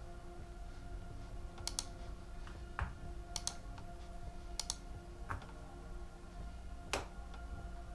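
Light clicks and taps of small hard parts being handled, about six, irregularly spaced, over a faint steady hum.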